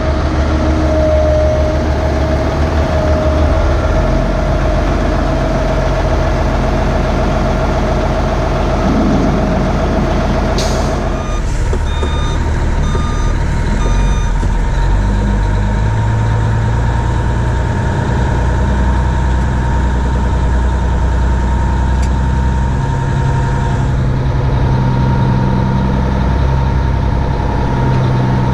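Heavy diesel vehicle engines running steadily. About eleven seconds in there is a short sharp air hiss, followed by a couple of seconds of evenly spaced back-up alarm beeps and a steady whine.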